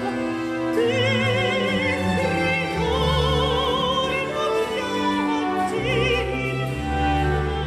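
A countertenor sings a slow Baroque opera aria, holding long notes with a wavering vibrato, over a string orchestra playing sustained notes beneath him.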